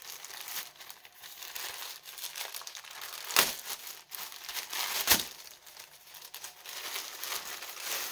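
Plastic packaging bag crinkling as it is handled and pulled open, with two sharp, louder rips about three and a half and five seconds in.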